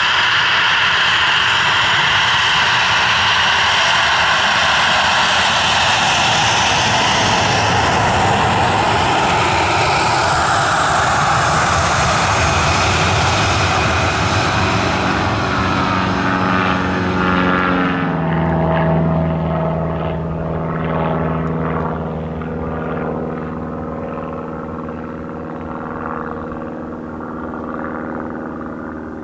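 Boeing 737-800's CFM56-7B jet engines running at taxi power as it passes close by: a loud steady rush with a high whine. About eighteen seconds in the sound changes abruptly to a lower engine hum without the high whine, which slowly fades.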